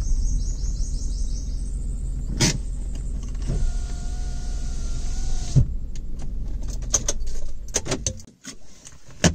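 Tata Tiago's three-cylinder engine idling with the car standing still. Partway through, an electric power window motor whines steadily for about two seconds and stops with a knock as the glass reaches the end of its travel. Near the end the engine shuts off and a few light clicks follow.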